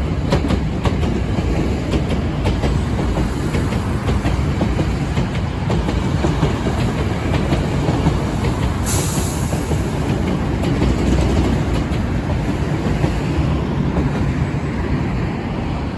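An electric train passing close by: a steady loud rumble of wheels on the rails with clickety-clack, and a brief high hiss about nine seconds in.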